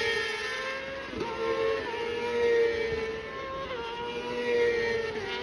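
Racing motorcycle engines running at high revs on the circuit, their pitch dipping sharply about three times as the bikes change gear or pass.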